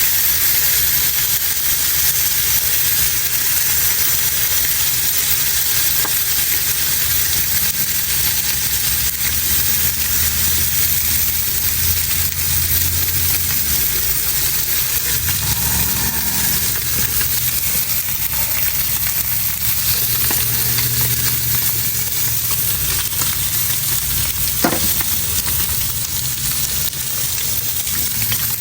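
Coho salmon fillet sizzling steadily in hot fat over the heat, a continuous dense crackling hiss. A faint low hum sits underneath in places, and there is one sharp tick near the end.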